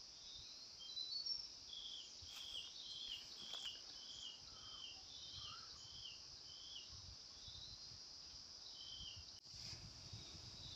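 Forest ambience: a steady high-pitched insect drone, with a bird calling a run of short falling notes, about two a second, that stops a few seconds before the end and comes back once.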